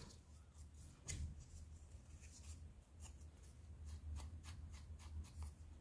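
Faint, light strokes and taps of a paint sponge and EVA foam pieces being handled, one about a second in and a quicker run of soft strokes in the second half, over a low steady hum.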